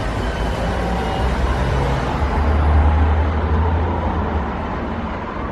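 Car driving, a steady low road and engine rumble that swells a little about halfway through.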